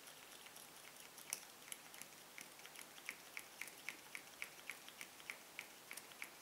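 A quick, regular run of light clicks, about four a second, from small plastic parts of a liquid-foundation bottle and its pump as it is handled.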